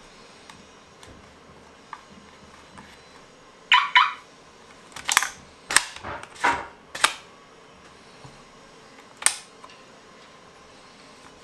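Flip-up rear sight on an ARP9 gel ball blaster being folded and snapped into place. It gives a pair of sharp clicks about four seconds in, a quick run of four or five more over the next three seconds, and one last click near the end.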